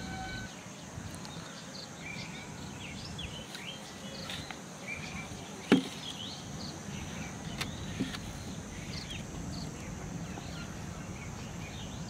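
Outdoor ambience of small birds chirping in short, scattered calls over a steady background hum. A single sharp knock sounds about halfway through, with a lighter one about two seconds later, as the PVC pipe trap and brick are handled.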